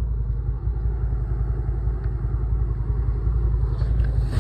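A vehicle engine running steadily at low revs, a continuous low rumble.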